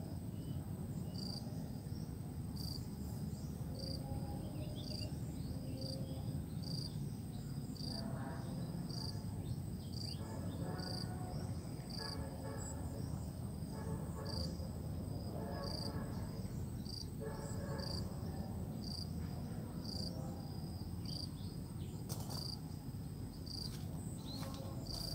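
Insects chirping steadily, a short high-pitched chirp repeating about once a second, over a steady low rumble.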